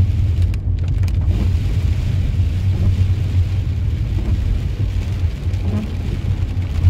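Heavy rain and gusting wind on a car driving through a storm, heard from inside the cabin: a steady low rumble under a hiss of rain on the windscreen.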